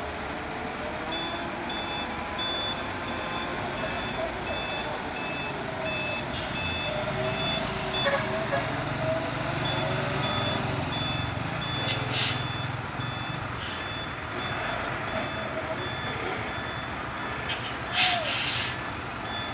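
A truck's reversing alarm beeping about twice a second, with a short pause about halfway, over a heavy truck's diesel engine running low. Two short hissing bursts break in, the louder one near the end.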